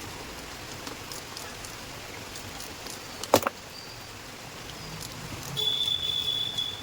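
A single sharp metallic knock, the loudest sound, about halfway in, as starter motor parts are handled during reassembly; near the end a steady high-pitched whine lasts about a second.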